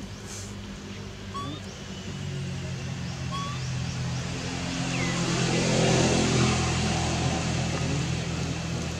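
A motor vehicle's engine passing by, growing louder to a peak about six seconds in and then easing off.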